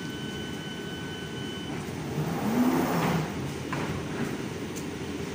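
London Underground Victoria line 2009 Stock train closing its doors: a steady electronic door-warning tone sounds for nearly two seconds, then the doors slide shut with a loud rush about two to three seconds in and a sharp knock shortly after. A low rumble of the train and platform runs underneath.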